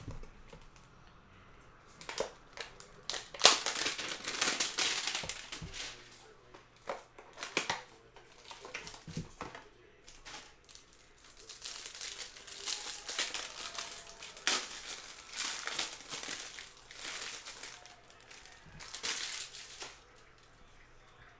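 Cardboard hanger box being opened and the plastic wrap around a stack of trading cards crinkling and tearing as it is stripped off, in irregular rustling bursts, with one sharp click about three seconds in.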